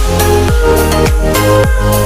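Electronic dance music with a steady beat; each beat is a deep bass note that drops in pitch, under sustained synth chords.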